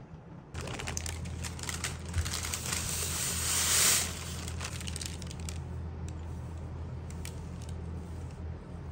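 Golden shredded knafeh dough crumbs pouring into a glass baking dish onto a cheese layer: a crackly rustle of many small pattering bits that builds to its loudest at about four seconds and stops soon after. Then a few light clicks and scrapes as a spoon spreads the crumbs.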